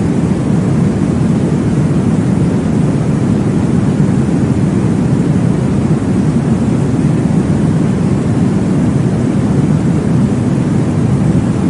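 Steady deep rushing noise from a baby-sleep noise track, weighted toward the low end like a muffled whoosh, even and unchanging with no audible beat.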